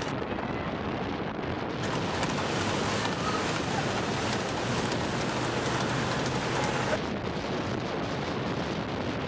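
Steady rushing of wind buffeting the microphone, mixed with falling rain.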